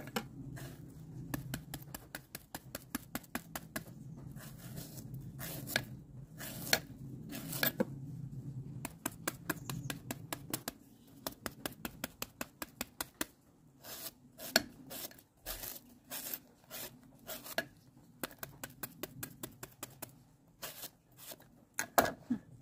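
Kitchen knife chopping and shaving slices of banana into a mortar: a run of quick, sharp taps, at times about three a second, as the pieces drop in. A low hum underneath stops about halfway through.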